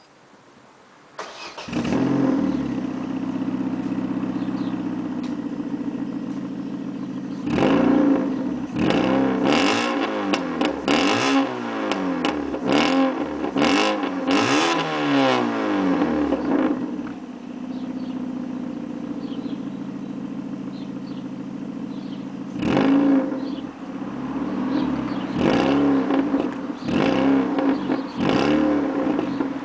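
Vauxhall Astra 1.4 16v four-cylinder petrol engine heard at the tailpipes through an Irmscher double backbox and a 2-inch straight-through centre section. It starts about a second in and idles, then is revved in a quick run of a dozen or so blips. It settles back to idle and is blipped several more times near the end.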